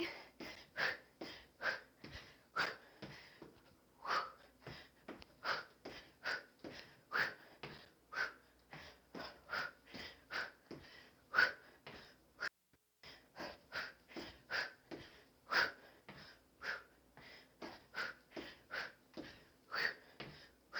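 A woman breathing hard in short, sharp exhales and gasps, about two a second, from the effort of repeated knee strikes and kicks.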